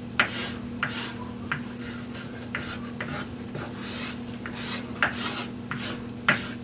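Hands rubbing and scraping on a piece of wood in short, irregular strokes, over a steady low hum.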